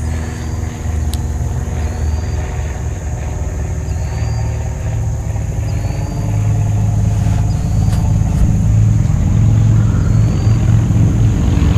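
Motorcycles going by, a low engine rumble that grows louder in the second half.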